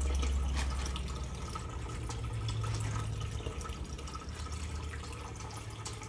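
Water trickling and dripping steadily in a turtle tank over a low hum, with scattered light clicks as a plastic pellet container is opened and handled.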